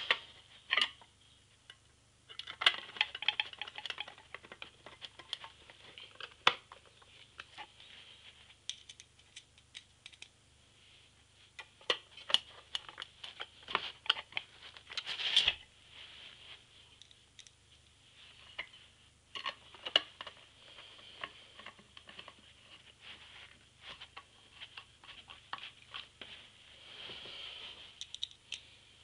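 Two IDE hard drives being handled and fitted into a drive caddy: scattered clicks, knocks and light rattles of the drive casings against the caddy, with short bouts of scraping.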